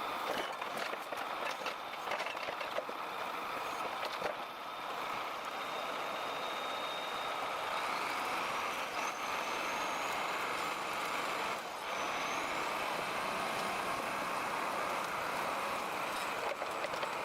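A heavy vehicle running steadily, with several sharp knocks in the first few seconds and a thin high whine that climbs in pitch in steps through the middle.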